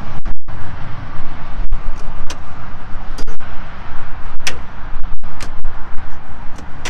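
Aluminium tool-cabinet drawers being pulled open and pushed shut, giving several sharp metal clacks a second or so apart, over a steady loud noise.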